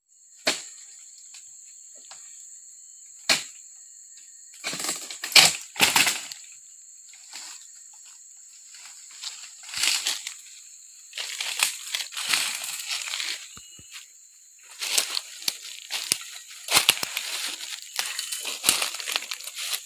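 Oil palm harvesting with a dodos, a chisel blade on a long pole, jabbed into the palm's frond bases: irregular sharp cracks and chops with rustling and crashing of palm fronds and leaves. The loudest strikes come about five to six seconds in, over a steady high whine in the background.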